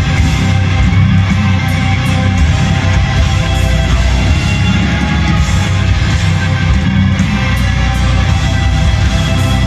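Black metal band playing live, heard from the audience: distorted electric guitars, bass and drums, loud and unbroken.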